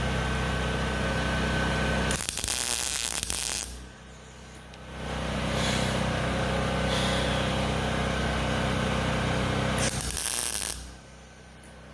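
Welder laying tack welds on exhaust pipe: two short bursts of arc noise, the first about a second and a half long and the second about a second, over a steady hum.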